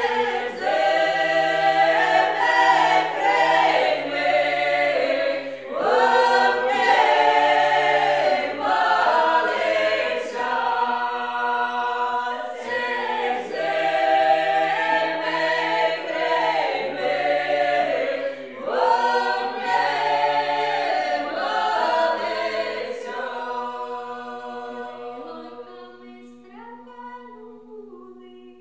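Small mixed group of women's and men's voices singing a traditional Ukrainian folk song a cappella in harmony, the men holding a low part beneath. The phrases start afresh about every six seconds, and the voices die away over the last few seconds on a long held chord.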